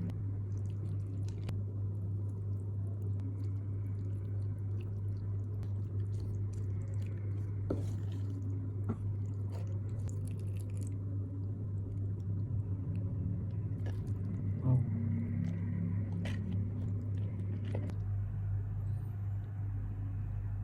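Close-miked chewing and wet mouth sounds of someone eating mie kocok noodle soup, with scattered small smacks and clicks over a steady low hum.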